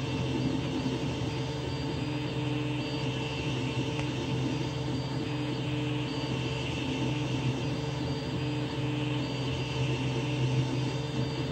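Creality CR-10S 3D printer running a print: its cooling fans whir steadily while the stepper motors whine in short tones that start, stop and change pitch as the print head moves back and forth.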